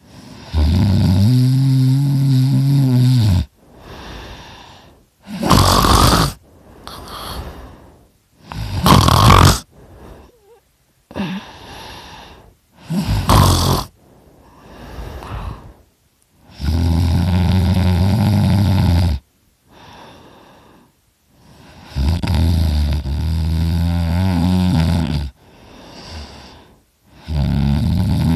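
A man snoring loudly through an open mouth, his uvula vibrating. There are four long, low, buzzing snores of two to three seconds each: one at the start, one in the middle, one soon after, and one near the end. Between the first two come three short, sharp, breathy snorts, with quieter breaths in the gaps.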